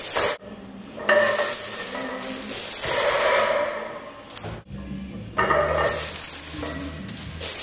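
Deadlift barbell loaded with plates and hanging chains being pulled and lowered for speed reps: the chains clink and rattle and the metal plates knock.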